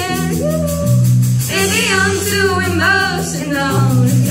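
Live rock band playing a song: electric guitars, bass and drums under several voices singing.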